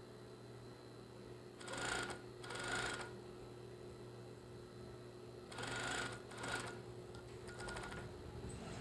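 Industrial coverstitch machine stitching down the elastic waistband of a pair of shorts in several short runs, each under a second, with pauses as the fabric is repositioned. A steady motor hum continues between the runs.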